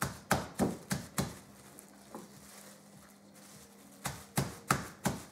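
End of a wooden rolling pin pounding a chicken breast flat through plastic wrap on a plastic cutting board: sharp thuds about three a second, a run of four at the start, a pause of about two and a half seconds, then another run near the end.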